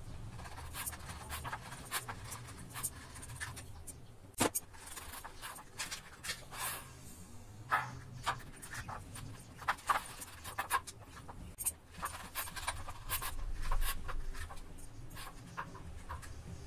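Knife blade scraping and clicking against an aluminium idli plate as steamed idlis are prised out of their moulds, in irregular short strokes.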